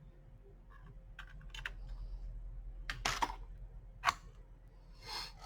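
Light clicks and taps of a laptop memory stick, an 8 GB DDR3L SO-DIMM, being handled and pushed into its slot, with a louder cluster of clicks about three seconds in and the sharpest single click about a second later, followed by a short rustle.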